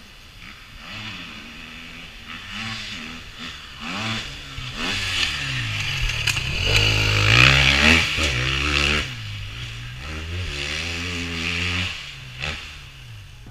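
Husqvarna FE 250 four-stroke single-cylinder dirt bike engine, heard from the rider's helmet camera, revving up and down as it rides the track, its pitch rising and falling again and again. It is loudest about seven to eight seconds in.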